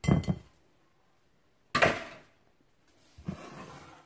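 A wire whisk beating creamy dressing in a glass bowl, stopping within the first half second. About two seconds in comes a single sharp knock.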